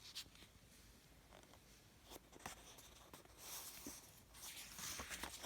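Near silence with faint paper rustling and a few soft clicks as a picture book's pages are handled.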